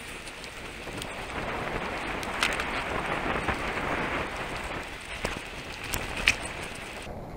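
Ride noise from a mountain bike rolling on tarmac: a steady hiss of knobbly tyres and wind on the camera's microphone, with a few sharp clicks from the bike rattling over the road surface, the loudest near the end.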